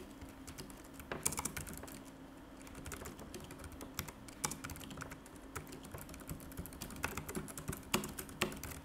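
Computer keyboard being typed on: irregular key clicks in quick runs with short pauses, over a faint steady hum.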